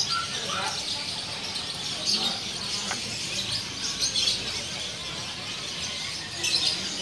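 Many caged birds chirping at once, a dense chorus of short high chirps, with people talking in the background.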